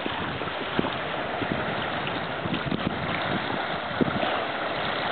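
Wind blowing across the microphone, a steady rush with occasional low buffeting thuds, over small waves lapping on the lake.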